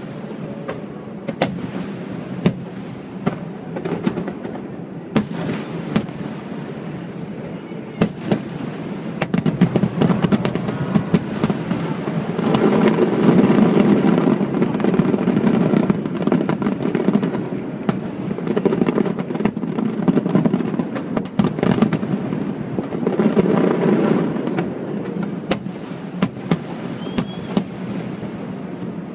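Fireworks display: a steady run of aerial shell bursts with many sharp bangs and crackles. It is thickest and loudest for a few seconds from about twelve seconds in, and again briefly near twenty-four seconds.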